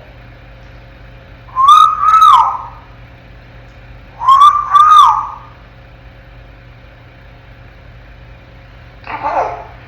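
African grey parrot whistling the same two-note phrase twice, a couple of seconds apart, then giving a shorter, fainter falling call near the end.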